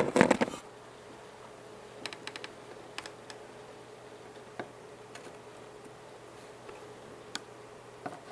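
Small sharp clicks and taps of a screwdriver and soldering iron against a circuit board while a capacitor is pressed and its leads desoldered: a quick cluster of clicks at the start, then scattered single taps.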